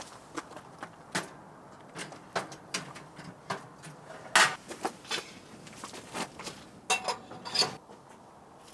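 Objects being handled and set down: irregular clicks and knocks, the loudest about four and a half seconds in, with a short metallic clink near the end.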